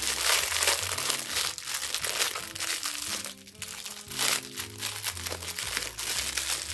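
Clear plastic packaging bag crinkling irregularly as it is handled and pulled open, over quiet background music with steady low notes.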